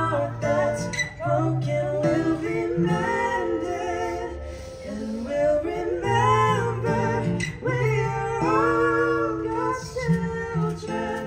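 Live duet: a woman sings, with a man's voice joining in, to a strummed and picked acoustic guitar.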